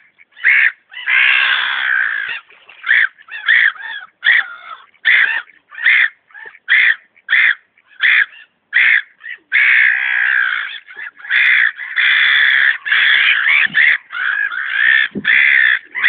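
A flock of gulls calling over water: short, harsh cries, under two a second, that overlap into a continuous clamour about a second in and again from about ten seconds in.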